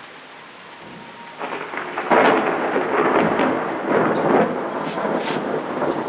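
Steady rain falling, then a long peal of thunder that breaks out about a second and a half in, is loudest soon after, and rolls on unevenly over the rain.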